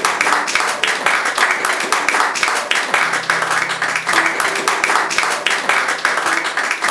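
Small audience applauding: many hands clapping in a dense, steady patter.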